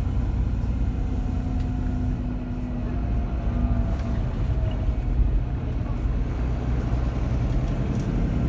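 Volvo B9R coach under way, heard from inside the passenger cabin: a steady low rumble of its rear-mounted diesel engine and road noise, with a faint whine in the middle.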